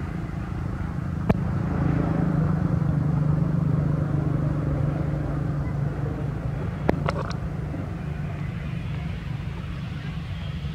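A motor vehicle's engine drone passing by, swelling about two seconds in and fading away over the following several seconds. Two short sharp clicks come through, one near the start and one about seven seconds in.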